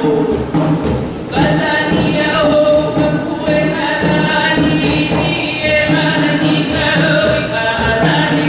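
A group of voices singing a Hawaiian mele that accompanies hula, with held notes that change every second or so.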